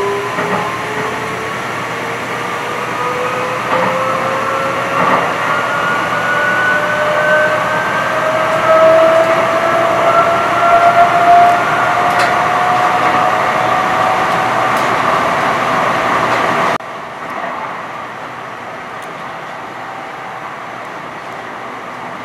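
Light rail train running and gaining speed, heard from inside the car: a whine from its electric drive climbs slowly in pitch over a steady rumble of wheels on rail. About 17 seconds in the sound drops abruptly to a quieter, even ride noise.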